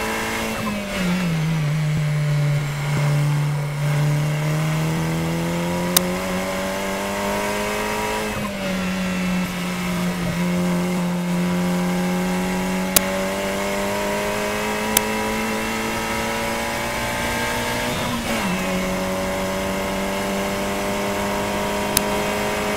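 KTM X-Bow race car engine under hard acceleration, heard from inside the open cockpit. Its note climbs steadily through each gear, drops sharply at upshifts about half a second in and again near the end, and jumps up at a downshift about eight seconds in. A few sharp clicks sound over it.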